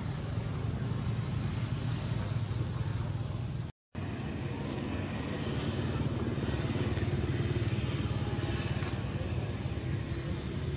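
Steady low drone of an idling motor vehicle engine, which cuts out completely for a moment about four seconds in.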